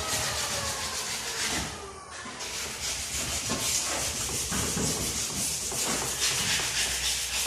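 Hand-scrubbing with an abrasive: rough rubbing and scraping strokes that come every second or so, over a steady hiss. A falling whistle-like tone sounds during the first two seconds.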